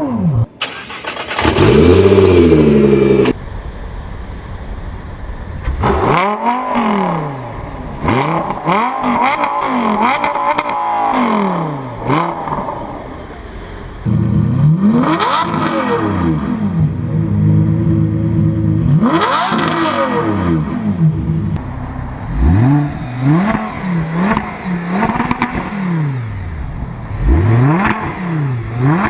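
Supercar engines revving hard, the pitch climbing and falling back with each throttle blip, over several clips that cut abruptly from one car to the next. Near the end come quick revs, about one a second.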